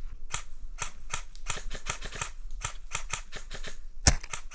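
A fast, irregular run of dry clicks and crackles, then a single louder, sharp crack about four seconds in: the Novritsch SSG-24 spring-powered airsoft sniper rifle firing one shot.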